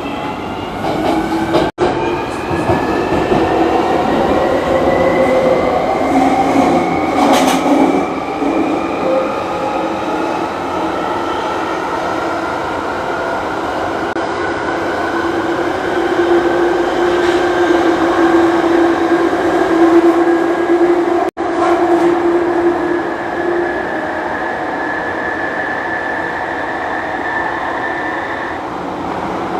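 London Underground Jubilee line train, 1996 Stock, running through the tunnel. Its traction motors whine, rising in pitch as it accelerates for the first several seconds, then settle to a steady whine over the rumble of the wheels. The sound cuts out for an instant twice.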